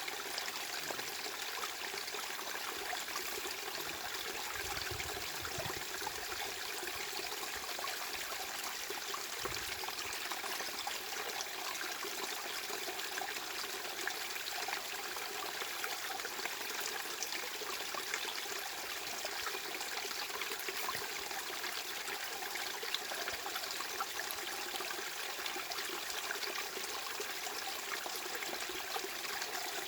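Steady rushing noise of running water, even in level throughout, with a fine crackling texture and little bass.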